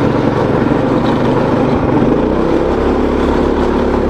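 Predator 212cc single-cylinder four-stroke engine on a go-kart running steadily at speed on its gasoline carburetor, with the engine note evening out about halfway through.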